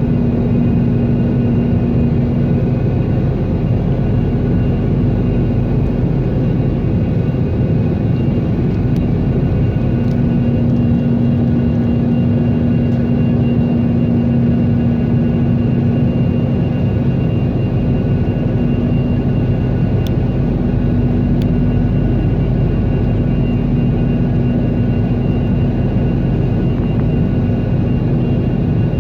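Cabin noise of a Sukhoi Superjet 100 in flight: its SaM146 turbofans and the rushing air make a steady drone with a low hum and a few faint higher whining tones.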